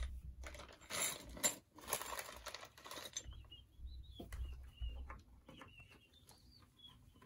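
Faint clicks, taps and rustling from handling flat-pack furniture panels, fittings and cardboard during assembly, busiest in the first three seconds. From about three seconds in, sparse small ticks come with a thin high chirping that keeps breaking off.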